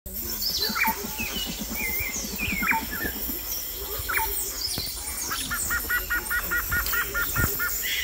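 A chorus of tropical forest birds calling, from a Costa Rican rainforest nature recording: short whistled calls sliding down in pitch, a fast low pulsing call in the first few seconds, and a quick run of about a dozen evenly spaced notes past the halfway point.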